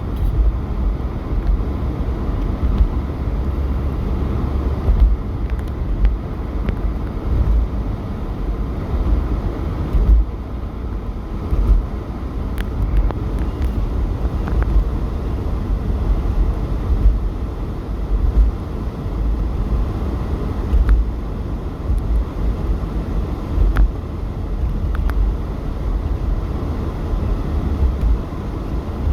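Blizzard wind gusting hard against the microphone: a heavy, uneven low rumble that swells and eases from moment to moment.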